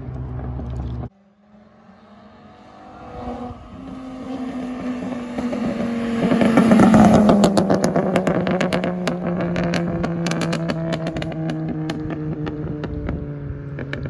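A steady low engine drone cuts off abruptly about a second in. Then a straight-piped VW Jetta 2.5 inline-five is heard approaching and passing by, loudest about seven seconds in. As it moves away, rapid pops and crackles come from the exhaust on overrun and run on to the end while the engine note slowly falls.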